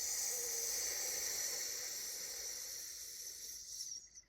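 A person's long hissing 'sss' breathed out through the teeth, a qigong exhale for clearing the lungs. It starts strongly, holds steady, then tapers off and stops after about four seconds.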